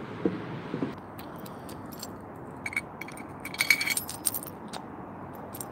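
A glass wine bottle with a stuck cork being handled: a few light clinks, then a short spell of metallic clinking and jangling about three and a half seconds in, over a steady background hiss.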